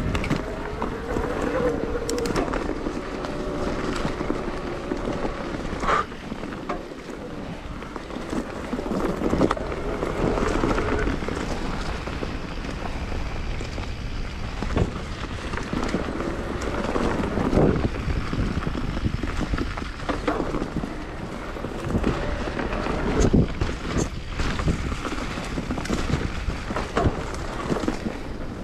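Electric mountain bike riding along a dirt forest trail: wind buffets the camera microphone over steady tyre rumble on the dirt, with sharp knocks and rattles from the bike over bumps several times.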